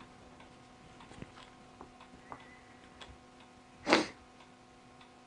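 Faint small clicks and taps of camera-rig parts being handled and fitted, over a faint steady hum, with one louder short noise about four seconds in.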